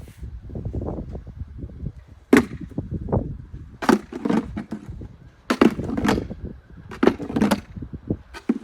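A hand tool scraping and chipping at snow and ice in a series of about five sharp scrapes and knocks, with a low rough scraping between strokes.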